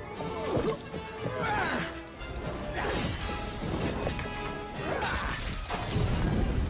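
Soundtrack music mixed with crashing, smashing sound effects and several sweeping, gliding sounds.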